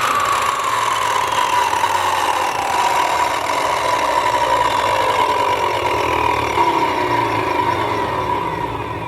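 Hitachi Koki CM11 280 mm electric concrete cutter running down after being switched off: a loud whine that falls in pitch, then fades out near the end.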